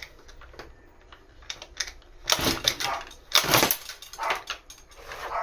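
Small petrol RC-car engine being cranked over for a start: clicks and knocks of handling, then two short rasping cranking bursts a second apart, with no sign of it catching.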